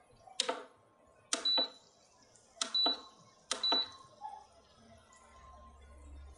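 Induction cooktop control panel being pressed four times in the first four seconds, each press a sharp click, the last three each with a short high beep, as the heat setting is changed to low.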